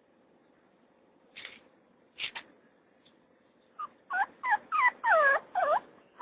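Puppy whimpering: a run of about six short, high yelping cries, each falling in pitch, starting a little past halfway through, after two brief scuffling noises.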